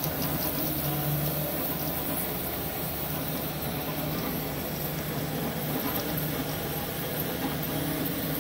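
MakerBot 3D printer printing: its stepper motors hum in short tones that start, stop and change pitch as the print head moves back and forth, over the steady whir of the cooling fans.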